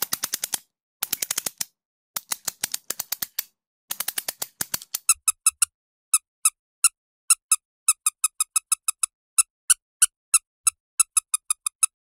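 Quick rattling clicks in short clusters, then from about five seconds in a long, irregular run of short, high-pitched squeaks, one after another.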